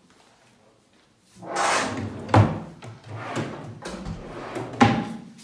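Nightstand drawers sliding along their runners and shutting, each slide ending in a sharp knock: once about two and a half seconds in, and again near the end.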